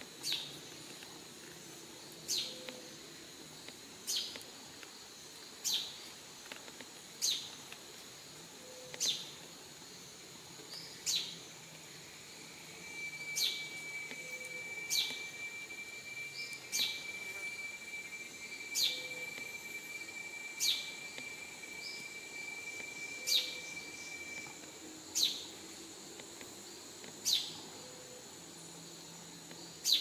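Rainforest ambience: a short falling call from an unseen animal, repeated about every two seconds, over a steady high insect drone. In the middle a single steady high tone holds for about eleven seconds.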